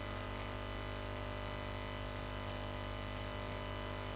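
Steady electrical mains hum and buzz with faint hiss, unchanging throughout, with no boom or other event standing out.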